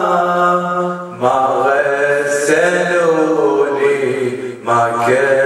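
A male radood (Shia eulogy reciter) chanting an unaccompanied Arabic mourning lament into a microphone. He sings long, held, ornamented lines, with short pauses for breath about a second in and near the end.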